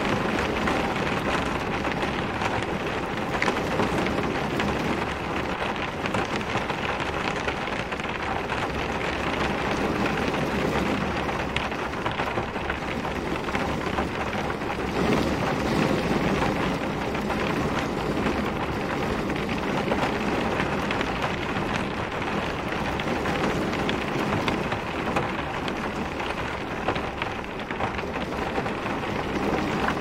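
Steady rain falling on a car, drops striking the glass and bodywork, swelling slightly about halfway through.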